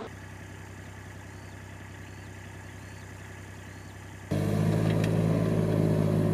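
Engine of a compact hive-loading machine idling steadily. It is faint and distant at first, then suddenly much louder and closer about four seconds in.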